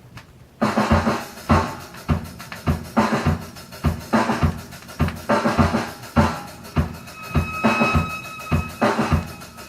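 Drum-led music played back from a record on a linear-tracking turntable, starting abruptly about half a second in, with kick and snare drum on a steady beat.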